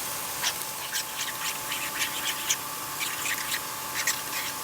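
Spoon stirring and scraping around a bowl, working thick peanut-butter sauce together: a run of irregular light clicks and scrapes.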